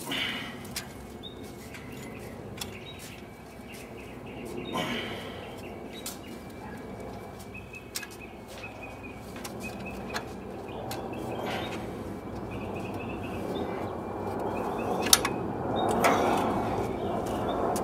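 Birds chirping in the background, with a handful of sharp clicks and clinks of hand tools on engine parts and a few brief rustling swells.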